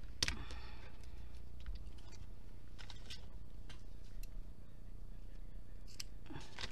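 Hands handling small craft supplies (pen, paper squares, sewing scissors) on a tabletop: a sharp click about a quarter second in with a short paper rustle after it, scattered faint ticks and rustles, and another brief rustle near the end.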